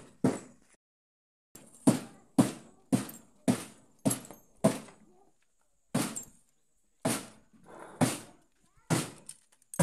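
Hammer blows on a loose sheet-metal car body panel: about a dozen sharp strikes, roughly two a second, each with a short ring, and two brief pauses, one about a second in and one just past the middle.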